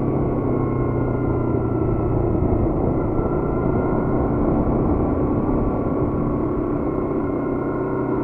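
Yamaha MT naked motorcycle's engine running under way at moderate revs. Its note dips and rises a little through the ride, over the rush of wind and road noise.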